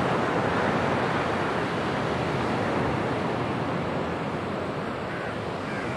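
Sea waves breaking on a beach: a steady rushing surf that eases slightly toward the end.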